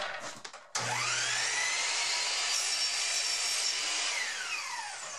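Electric miter saw switched on a little under a second in, its motor whine rising in pitch as it spins up, running steady while it crosscuts a cedar board to length, then winding down with a falling whine near the end.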